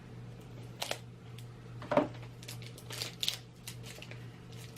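Scattered clicks and crinkles of packaging being handled, the loudest about two seconds in and a short flurry a second later, over a steady low hum.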